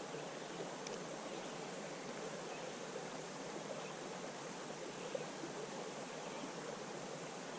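Steady rushing of flowing creek water, an even noise that holds without change.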